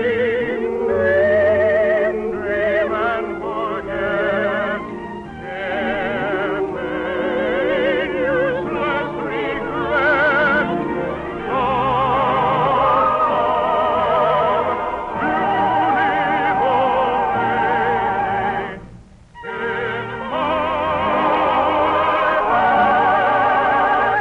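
Operatic singing with strong vibrato over an orchestra, as in a musical finale. The music falls away briefly about 19 seconds in, then resumes.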